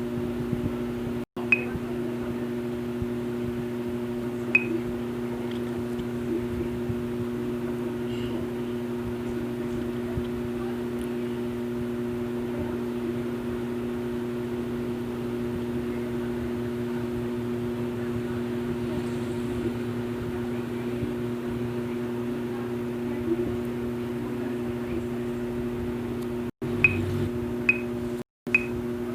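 A steady mechanical hum with two constant tones, like a running appliance or fan, with a few faint short clicks. The sound cuts out completely for a split second a couple of times.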